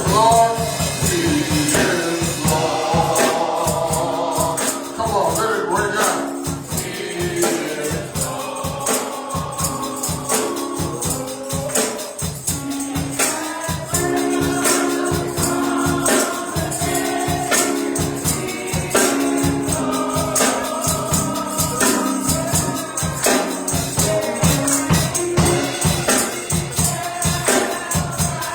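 Gospel choir or congregation singing with a steady tambourine beat.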